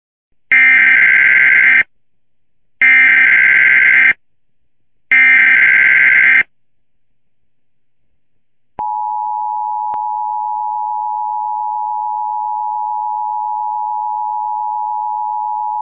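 Emergency Alert System header: three bursts of data tones, each about 1.3 s long and about a second apart. About 9 s in the steady two-tone EAS attention signal starts and holds unbroken.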